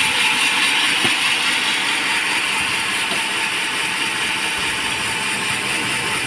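Band sawmill running steadily, a dense high-pitched mechanical hiss with no breaks.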